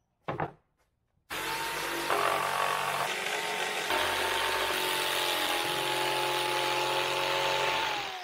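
Corded jigsaw cutting plywood: a steady motor whine over the rasp of the blade, starting about a second in and winding down at the end. A short knock comes just before the saw starts.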